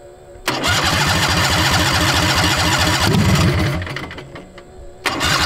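Heavily modified Harbor Freight 670cc V-twin, freshly primed, fires about half a second in and runs with an even pulse, then fades out near four seconds and catches again just after five seconds. The engine has a hard time picking up fuel.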